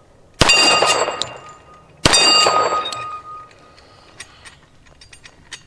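Two shots from a .45 ACP Auto-Ordnance 1911 pistol, about a second and a half apart. Each is followed at once by the ringing clang of a steel target plate being hit, fading over about a second.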